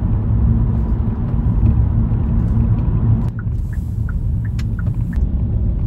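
Low, steady rumble of road and engine noise inside a moving Kia K3's cabin. About three seconds in, the sound changes abruptly and a few faint short chirps come through for about two seconds.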